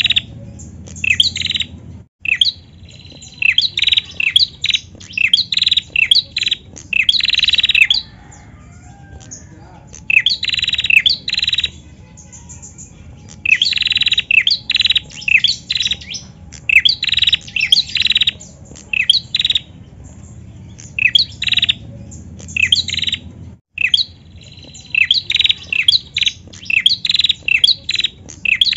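A caged female prenjak songbird calling in loud bouts of rapid, sharp chirps, each bout a few seconds long with short pauses between.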